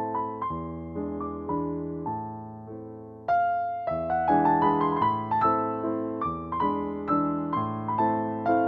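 Background piano music: a melody of single struck notes that each fade away, with a brief dip and then a louder phrase about three seconds in.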